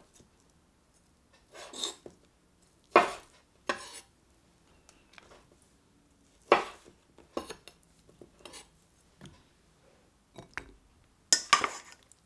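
Chef's knife cutting through roasted sweet potato slices on a wooden cutting board: separate sharp knocks of the blade against the board, a second or more apart. A brighter, louder clatter comes near the end.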